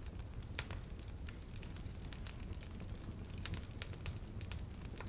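Faint background ambience: a low steady hum with soft, scattered crackles throughout.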